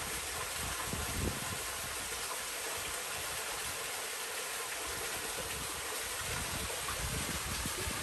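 Rushing water of a mountain waterfall, a steady even wash of noise, with a low rumble that comes and goes.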